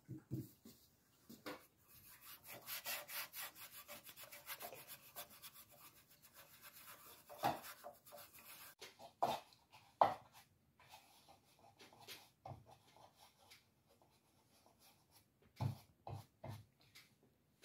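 Wax being rubbed hard into a distressed wooden board by hand, in quick, even back-and-forth strokes that stop about nine seconds in. A few light knocks of wood follow, with a small cluster near the end.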